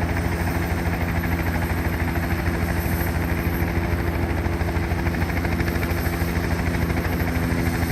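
Helicopter running steadily: fast, even rotor beating under a thin, high turbine whine.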